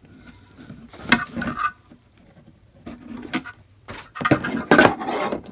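Plastic packaging crinkling and rustling in short bursts as vacuum-cleaner accessories are pulled out of the box, with a sharp click about three seconds in. The loudest rustling comes near the end.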